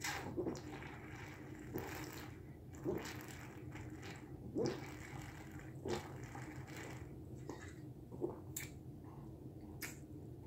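A person gulping wine straight from the bottle: a series of swallows, about one every second or so, some louder than others.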